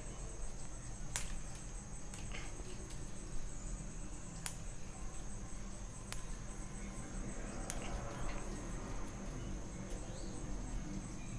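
Bonsai pruning scissors snipping small twigs off a Streblus asper (sandpaper tree) bonsai: a few sharp clicks, one every second or two. A steady high-pitched drone sits beneath them.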